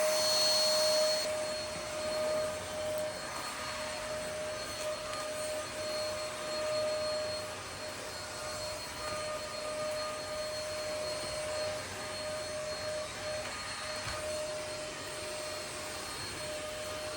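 Cordless stick vacuum cleaner running steadily: a steady motor whine over a rushing of air.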